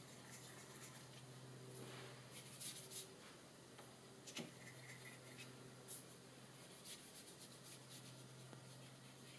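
Faint, soft scratches of a watercolour brush, swirled in a paint pan and then stroked across paper, heard a few times over a low steady hum in near silence.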